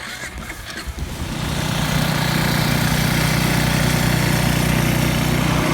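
ATV engine starting off and then running steadily, growing louder about a second in, with a rushing noise over it.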